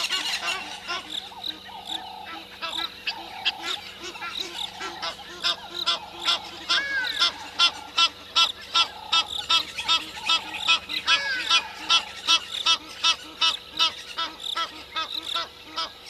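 Several birds calling at once: a run of short, sharp calls, several a second, that gets louder about five seconds in, over a lower call repeated about once a second.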